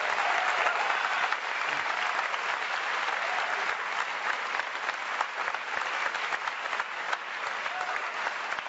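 Audience applauding, a dense steady clapping that eases off gradually near the end.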